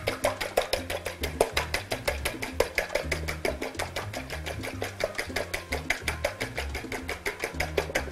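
Two eggs being beaten fast in a glass bowl: a utensil clicking rapidly against the glass, about six or seven strokes a second. Background music with a bass line plays underneath.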